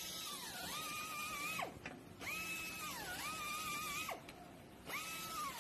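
Handheld grinding tool whining at high speed while deburring molded rubber auto parts. Its pitch sags each time it is pressed into the work and then recovers. It stops twice and starts again.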